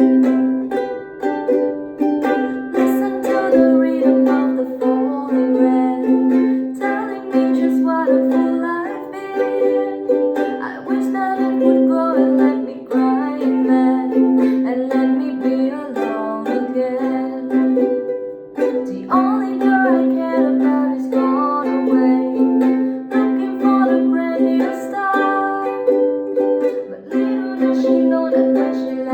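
Ukulele playing a song, its notes and chords picked out in a steady rhythm.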